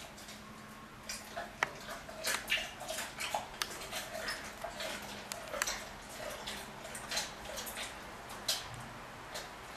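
Amur tiger chewing meat: a run of sharp, irregular clicks and smacks of the jaws and teeth on the meat, starting about a second in.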